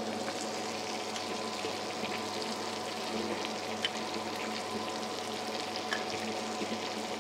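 A butter-and-cream caper sauce sizzling steadily in a pan over the heat, with a few light clicks of a utensil.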